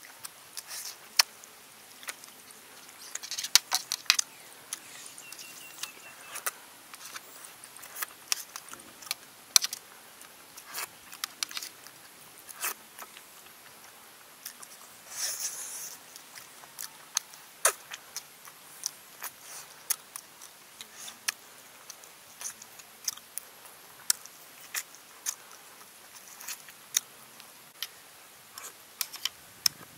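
Close-miked eating: a man chewing pieces of curried snake by hand, with irregular sharp mouth clicks and lip smacks and a short sucking sound about halfway through.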